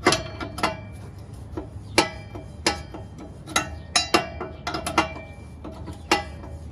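Sharp metallic clicks and clinks, about a dozen at irregular intervals, each with a short ring. They come from a wrench turning a new oxygen sensor into the exhaust pipe's threaded bung, the sensor itself being used to clean up the threads.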